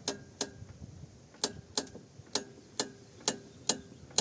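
Sharp knocks from the front-left suspension of a Kia Rio X as the steering wheel is rocked back and forth, about ten in quick succession, roughly in pairs. It is a year-old knock that a stabilizer check and a strut top bearing swap have not cured, which the owner puts down to something inside the strut.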